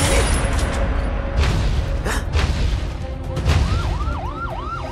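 Film action soundtrack: a deep rumble under music with several whooshing, crashing hits, then about two-thirds of the way in a siren begins wailing in fast rising-and-falling swoops.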